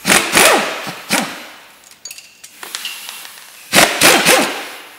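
Impact wrench undoing the big end cap bolts in short bursts: three main bursts, at the start, about a second in and just before four seconds, each followed by the motor spinning down.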